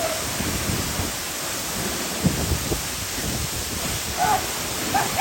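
Waterfall rushing as a steady, dense roar of falling water.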